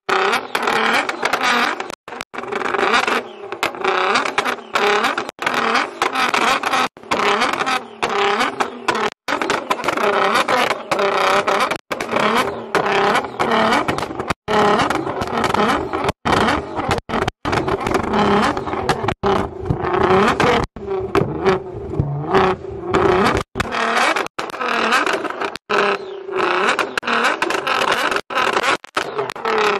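Nissan GT-R's twin-turbo V6 being revved while parked, the exhaust note rising and falling repeatedly, with many brief breaks in the sound.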